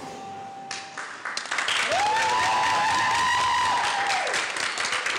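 A held tone from the performance fades out about a second in, and audience applause starts and fills the rest, with a long high cheer over the clapping from about two seconds in.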